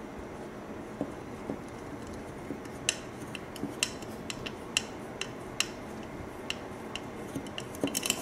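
Screwdriver turning a small screw with a washer into a black multirotor frame plate: irregular light metallic clicks and ticks, starting about three seconds in and coming thickest near the end, with a few soft knocks.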